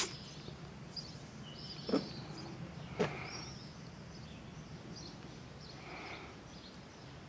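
Outdoor rural ambience: steady low background noise with small birds chirping now and then, and two short knocks about a second apart, a couple of seconds in.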